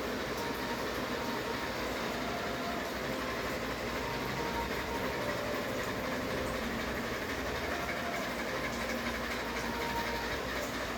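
Ceiling fan running with a steady, even whir.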